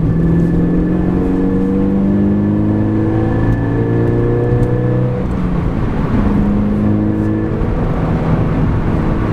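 Subaru BRZ's FA20 flat-four engine through a Corsa cat-back exhaust, heard inside the cabin, pulling under load with its note slowly rising. About five seconds in the pitch drops and it pulls again. It is a steady exhaust note without cabin drone.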